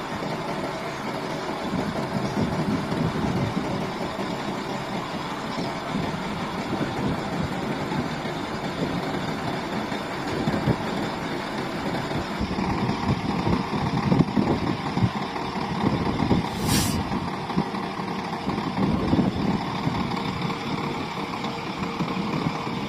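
Heavy truck diesel engine running steadily at idle, from a Volvo FM12 prime mover, with one short, sharp hiss of air about seventeen seconds in.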